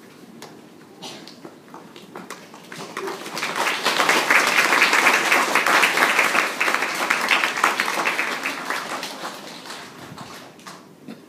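An audience of schoolchildren clapping: applause that builds up over a few seconds, holds in the middle and dies away near the end.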